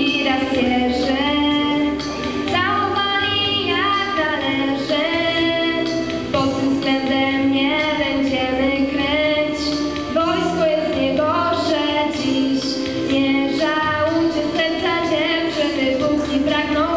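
A girl singing a song into a microphone over steady musical accompaniment.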